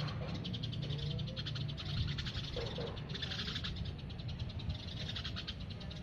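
Wild birds in a garden tree: a continuous fast, high-pitched chirping with a couple of short lower calls, over a low steady hum.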